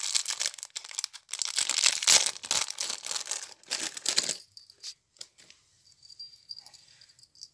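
Thin clear plastic bag crinkling and rustling as a metal spinner spoon lure is worked out of it, for about four and a half seconds. After that there are only a few light clicks and faint rustles.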